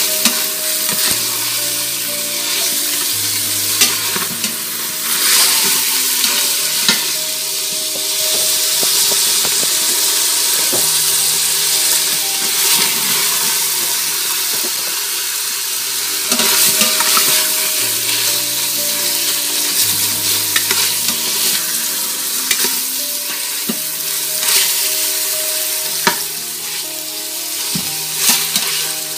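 Ground beef sizzling as it fries in its own fat in the stainless steel inner pot of an Instant Pot on the sauté setting. A plastic spatula stirs and turns it, scraping and now and then knocking against the pot.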